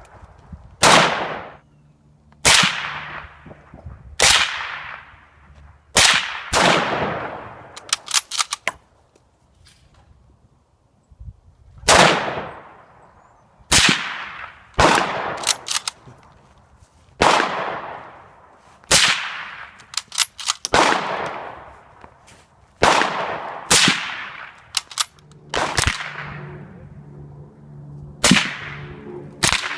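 Series of suppressed gunshots, about one every one to two seconds, each a sharp crack with a short fading tail. A few times a quick flurry of lighter clicks falls between the shots.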